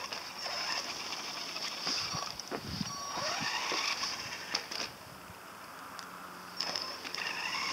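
Electric motor of a toy radio-controlled monster truck whining as it drives on asphalt, rising in pitch as it speeds up about three seconds in and again near the end.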